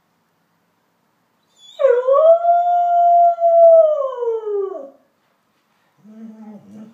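A dog howling: one long howl that rises, holds steady and then sinks away, followed near the end by a shorter, fainter, lower-pitched call.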